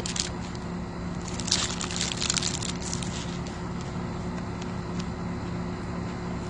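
Bite into a crisp deep-fried bibimbap croquette and chewing: a short run of crunches about one and a half to three seconds in, over a steady low hum.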